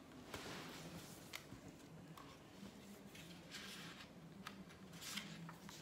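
Near silence: quiet room tone with a few faint rustles and soft clicks.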